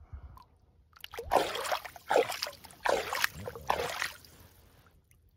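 A hand splashing through shallow water among rocks, several quick splashes over about three seconds.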